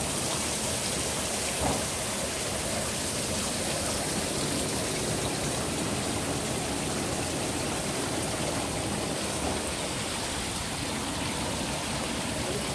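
Steady rush of water as spirulina culture flows through a spirulina harvesting machine's drum filter, with one short knock about two seconds in.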